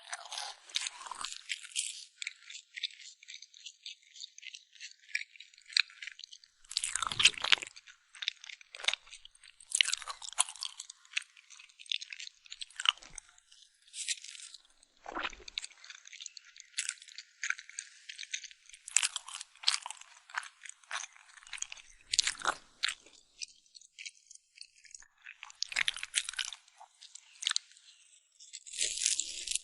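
Close-miked crunching and chewing while eating cake, in irregular bursts of crackly bites and chews with short pauses between them.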